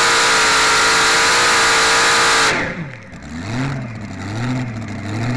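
A pulling machine's open-piped engine, with zoomie exhaust and an injector hat, runs flat out at high, steady revs. About two and a half seconds in the throttle is shut: the revs fall away quickly and the engine settles into a lumpy idle that rises and falls in pitch about once a second.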